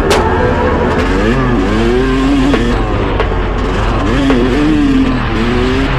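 Yamaha YZ250 single-cylinder two-stroke dirt bike engine revving up and down as the rider works the throttle through a corner, its pitch rising and falling several times.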